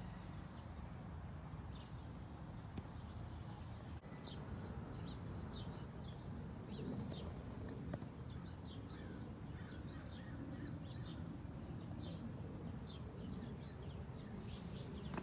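Small birds chirping in many short, irregular chirps over a steady low background rumble.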